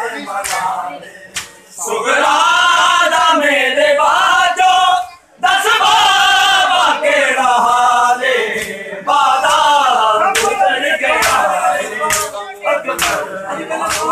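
Men's voices chanting a noha, a Shia mourning lament, loud and in unison. Through it come sharp slaps of hands beating bare chests in matam, in a steady beat that is clearest in the second half.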